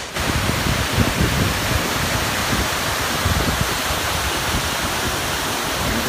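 Tumpak Sewu, a tall curtain-like tiered waterfall: water falling and crashing, a steady, dense rush with irregular low rumbles running through it.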